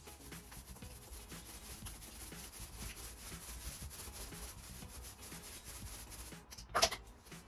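Paint roller rolling white paint onto a wooden stable wall: a steady rubbing with repeated strokes. One short, louder noise near the end.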